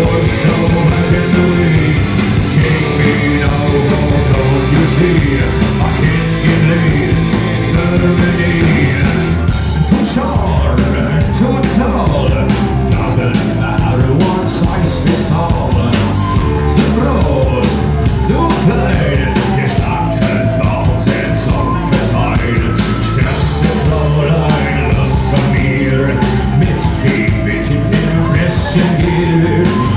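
Live rock band playing loud through the club PA, with electric guitars, drums and a male lead singer, heard from the crowd. About ten seconds in the song shifts into a section driven by hard, regular drum hits.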